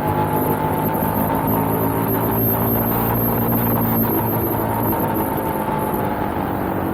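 Suzuki SV650X's 645 cc V-twin engine running steadily at cruising speed, heard from on the bike with wind noise mixed in.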